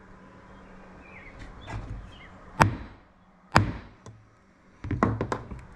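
Hammer striking a steel letter punch to stamp a machined metal piece: two sharp blows about a second apart, then a quick run of lighter taps near the end.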